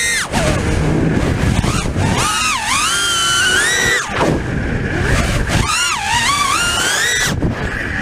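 T-motor F60 brushless motors of an FPV quadcopter spinning four-blade 5-inch props on a 5S battery. Their high whine dips and sweeps back up several times with each throttle chop and punch. Wind rushes over the onboard camera's microphone.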